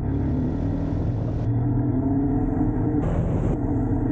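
Motor vehicle engine running steadily, its pitch shifting slightly a couple of times, with a brief rush of noise about three seconds in.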